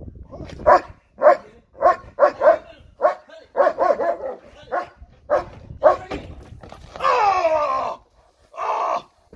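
A dog barking hard and repeatedly, about two barks a second, at a man in a padded bite suit during protection training. Near the end come two longer cries that fall in pitch, the first lasting about a second.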